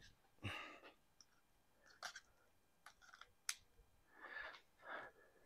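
Near silence with a few faint rustles and clicks, one sharper click about three and a half seconds in.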